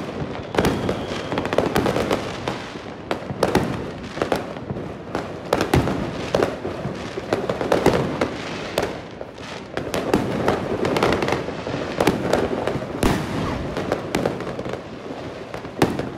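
Many fireworks going off at once across a city, near and distant. They make a continuous run of overlapping bangs and crackling with no pause.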